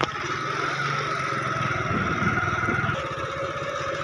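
Motorcycle engine running steadily at an even, low speed, with a steady whine above its pulsing rumble.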